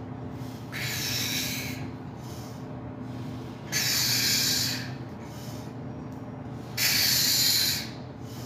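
A man's forceful breaths out, three of them about three seconds apart, one with each rep of a heavy barbell bench press, over a steady low room hum.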